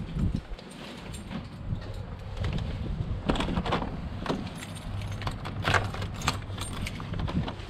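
A bunch of keys jangling and clicking as a key is worked in the lock of a uPVC door, in a run of sharp jingles about three to seven seconds in, over a steady low rumble.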